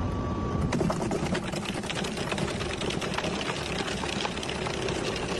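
Plastic shredder's spinning blades tearing into a solid plastic block over the steady running of the machine, with dense crackling and ticking from about a second in as the block is chewed into flakes.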